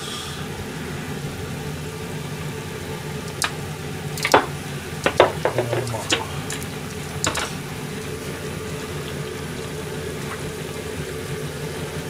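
Chicken liver simmering in soy-based liquid in a small aluminium saucepan on a gas burner, over a steady low hum. A handful of sharp clicks and knocks come between about three and a half and seven and a half seconds in, as the pan is handled.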